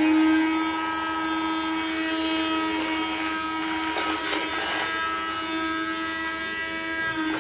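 Small electric blender motor running at a steady pitch, grinding dry eggshells, with a few brief clatters about three to four seconds in.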